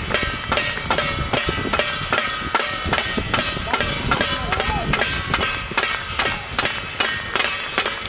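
Rhythmic metallic clanging, about three to four strikes a second, each strike leaving a ringing metal tone: noise-making with struck metal in support of the Janta Curfew.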